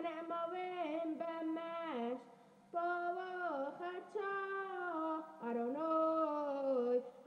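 Singing from the soundtrack of a recovered home-video tape of a Jewish religious celebration, played back through a TV. The voice holds long notes and glides between them, with a short pause about two seconds in.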